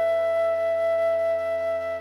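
A big band plays the opening of a jazz piece: one melody note held steady over a sustained low chord.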